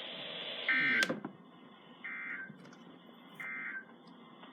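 Three short bursts of warbling two-tone data signal, about 1.4 s apart, over radio hiss: the EAS/SAME end-of-message code closing a weekly test broadcast on NOAA Weather Radio. A sharp click comes just after the first burst, and the hiss drops quieter after it.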